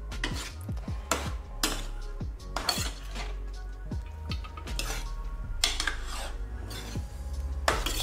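A steel ladle scrapes and clinks against a steel pan while diced bottle gourd and soaked chana dal are stirred together, in irregular strokes about a second apart.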